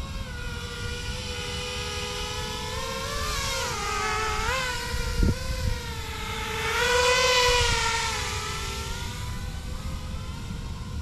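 Diatone Roma L5 five-inch FPV quadcopter's motors and propellers whining, the pitch rising and falling as the throttle changes, loudest about seven seconds in. A low rumble runs underneath, and there is a single sharp knock about five seconds in.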